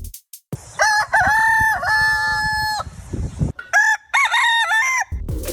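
Rooster crowing: one long cock-a-doodle-doo about a second in, then a shorter crow near the end.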